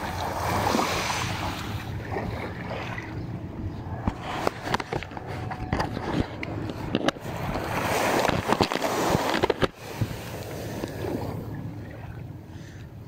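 Water and wind noise around a small boat on the sea, swelling twice. Short knocks and clicks come in the middle of the stretch.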